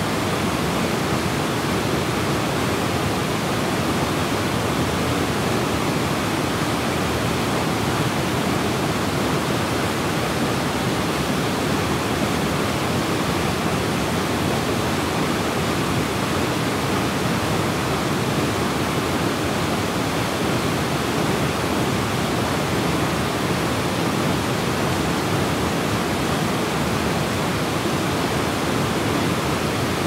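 Ryuzu Falls, a cascade waterfall, pouring into its plunge pool: a steady, dense rush of falling water with no change.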